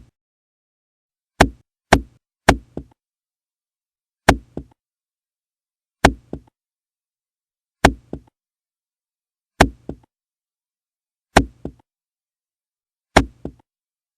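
Hammer blows: single sharp strikes, most spaced evenly about every two seconds, with three quicker strikes near the start. Each blow is followed by a softer second knock, like a rebound.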